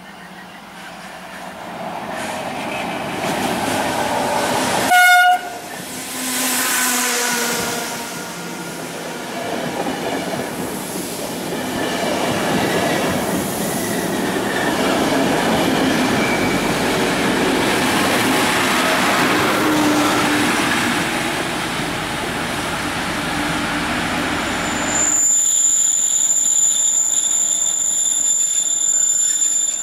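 An E464 electric locomotive approaches with its regional train, gives one short, loud horn blast about five seconds in, and its coaches roll past with clattering wheel noise. Near the end, after a cut, a steady high-pitched whine over a lower running note comes from an arriving D445 diesel locomotive.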